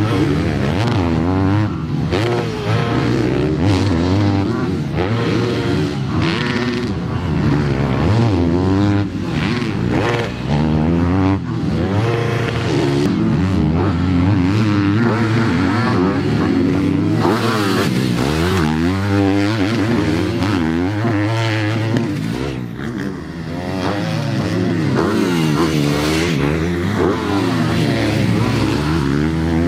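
Factory Yamaha four-stroke motocross bikes revving hard, the engine note climbing and dropping again and again as the throttle is opened and chopped.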